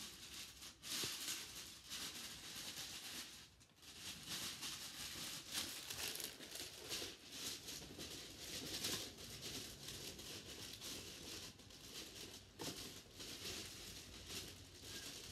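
Crinkling and rustling of toy packaging being handled, in irregular crackly bursts with a short lull about four seconds in.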